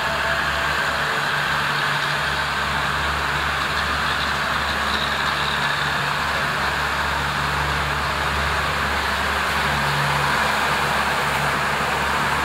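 Steady low drone of a diesel train's engine running, with no change in pitch and no separate knocks or clicks.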